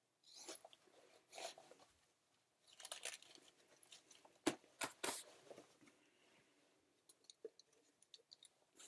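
Rustling and crinkling of the gas mask hood and uniform fabric as they are handled and adjusted at the neck, with two sharp clicks about four and a half and five seconds in.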